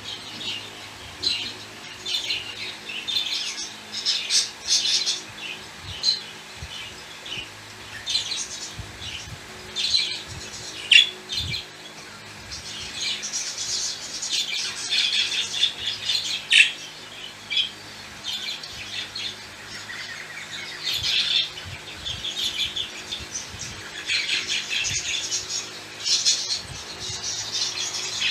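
Budgerigars chattering and warbling continuously in their cage, with sharp squawks mixed in and a couple of louder ones around the middle.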